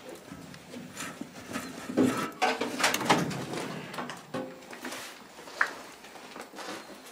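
Scattered knocks, scuffs and rustling of someone moving about among debris in a small, cluttered room, with a short higher-pitched sound about five and a half seconds in.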